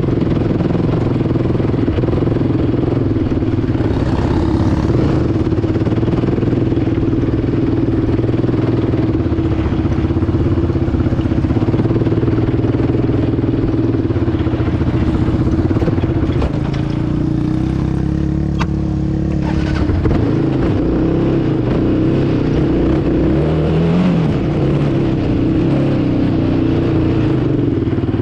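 Yamaha ATV engine running steadily under throttle, heard close up from a camera mounted on the quad. For a few seconds past the middle the engine note drops a little and shifts as the throttle eases, then picks back up.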